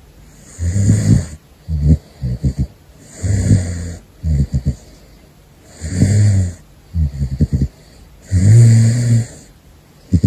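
Caracal snoring in its sleep: about four breaths, each a drawn-out low snore followed by a quick fluttering run of short pulses. The snore near the end is the loudest.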